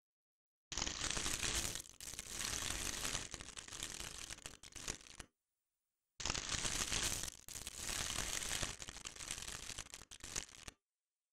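Computer-synthesized crumpling of a thin plastic bag being crushed: dense crinkling full of sharp clicks, played twice, about four and a half seconds each with a short silence between. The first pass comes from brute-force modal synthesis, the second from the faster clustered-mode method.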